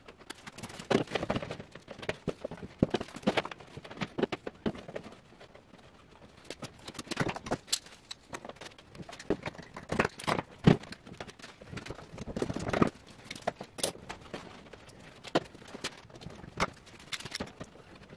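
Spring clamps and a bar clamp being put on and tightened against wooden boards: irregular clicks, knocks and clatter.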